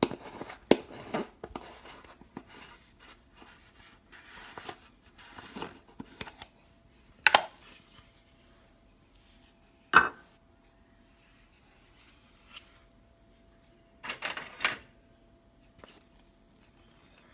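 Kitchen utensils and containers handled on a countertop: scattered clicks, knocks and light scraping, with sharp knocks about seven and ten seconds in and a cluster near the end. A faint steady hum runs underneath from about six seconds in.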